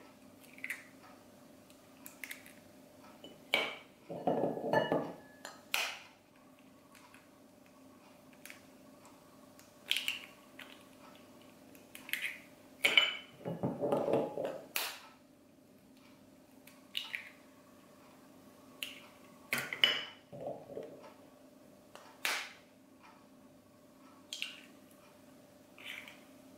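Eggs cracked one after another over a porcelain bowl with a metal table knife: scattered sharp taps and clinks of the knife on the shells and the bowl, with two longer spells of shell breaking about 4 and 13 seconds in.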